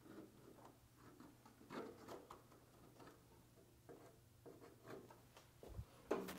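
Near silence with faint scattered ticks and rustles from hands handling a small glue bottle against a plywood kayak panel while glue is run along a seam; a slightly louder rustle comes near the end.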